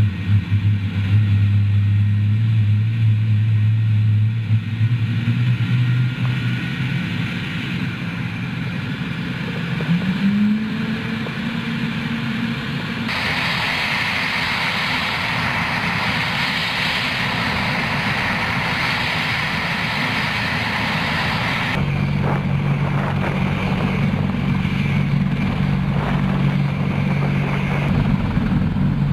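Helicopter engine and rotor noise, steady throughout, changing character abruptly about thirteen and twenty-two seconds in. In the middle stretch a higher hiss is on top, and a brief rising whine comes about ten seconds in.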